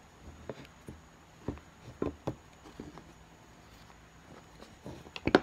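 Light clicks and knocks of the metal halves of a small sewing machine motor being handled and set down on a wooden workbench, with a quick cluster of louder knocks near the end.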